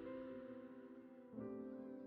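Soft background music on piano or keyboard, held chords with a new chord coming in about one and a half seconds in.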